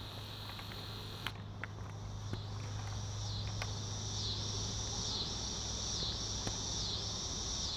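Insects chirring outdoors: a steady high trill that dips briefly in pitch and comes back up about once a second, over a faint steady low hum, with a few faint clicks.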